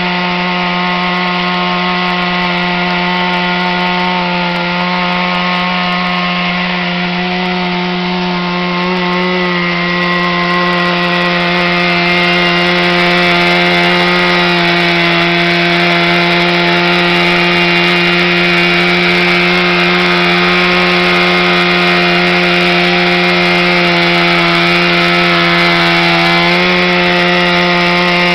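Chainsaw running flat out without a break while cutting into a tree trunk, holding one steady note and growing a little louder about twelve seconds in.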